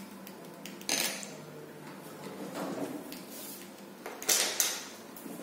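Drawing pencils handled on a desk: a sharp clatter about a second in and two quick ones just after four seconds, with a softer scrape between.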